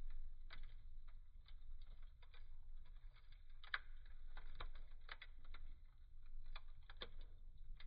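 Wood fire burning in a fireplace, with irregular sharp crackles and pops over a low steady rumble of the flames. The loudest pop comes a little before the midpoint.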